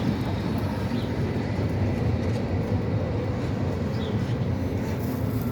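Tram running on its rails, a steady rumble of wheels and running gear.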